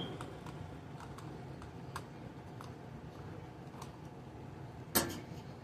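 Faint scattered clicks and taps of a plastic RC toy being handled while its battery compartment is opened, with one louder click about five seconds in.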